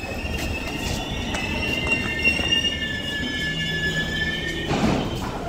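Duronto Express passenger train drawing to a halt alongside the platform, its wheels and brakes squealing in several high whines that sag slightly in pitch and stop about five seconds in. The squeal ends in a short rush of noise.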